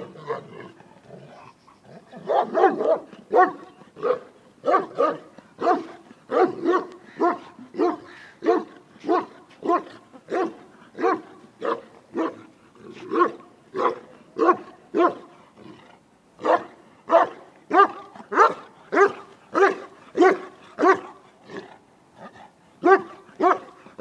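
Large Pakistani bully dog barking over and over, about two barks a second, breaking off briefly near the start and twice more later on.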